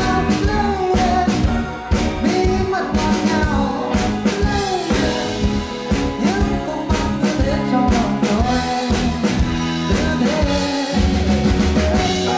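Live band music: a male singer singing into a microphone over a drum kit and electric guitar, with a steady beat of drum hits.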